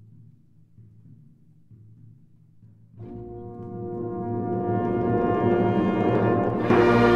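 Orchestral background music: a quiet low drum roll, then a held chord that enters about three seconds in and swells loud.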